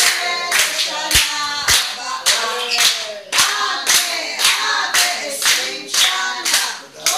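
A small group of people singing together while clapping hands in time, a steady beat of about two claps a second.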